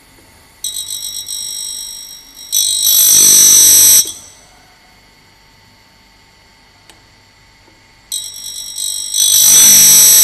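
Tool grinder's wheel grinding the relief behind a cutter's edge in two passes: each starts as a high-pitched squeal, swells into a loud harsh grind for about a second, then cuts off. A faint steady hum from the running grinder sits between the passes.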